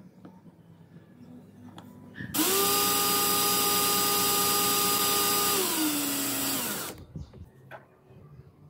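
Small electric motor driving the hydraulic pump of a homemade mini PVC hydraulic rig, a steady whine that starts abruptly, drops to a lower pitch about three seconds later and cuts off suddenly after about four and a half seconds.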